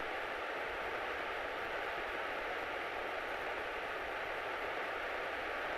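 Steady cabin noise of a Grumman light airplane taxiing, heard through the cockpit intercom as an even hiss with a faint steady whine.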